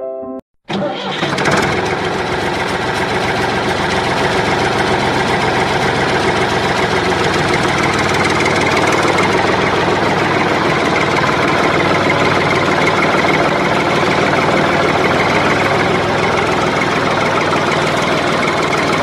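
Tractor engine running steadily, coming in abruptly about half a second in and cutting off at the end.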